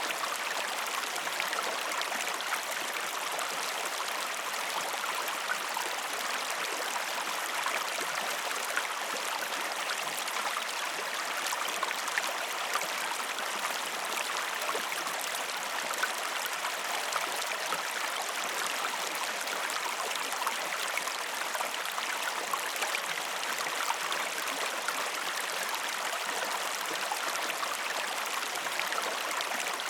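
Flowing stream water, a steady, even babble with many small splashes and no pauses.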